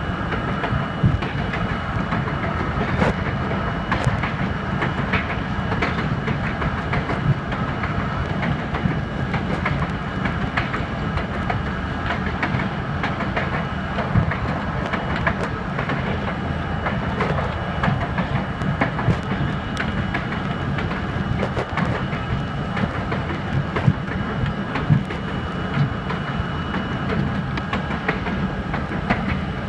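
R32 subway train running at speed on elevated track, heard from inside the front car. A steady rumble of wheels on rail is broken by irregular clicks and knocks over rail joints, with a thin steady whine above it.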